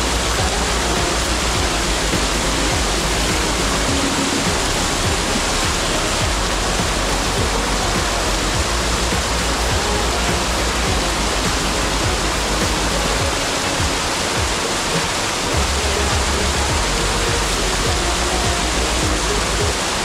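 Mountain stream water rushing steadily over rocks and through shallow pools.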